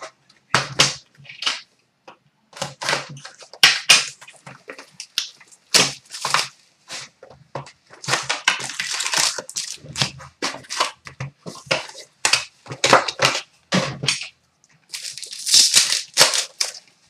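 Cellophane and foil wrappers crinkling and tearing as a sealed hobby box of hockey cards and its packs are ripped open, with irregular crackles, rustles and light cardboard handling knocks.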